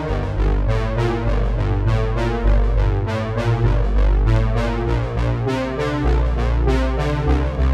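Background music: an upbeat electronic keyboard tune with a steady beat.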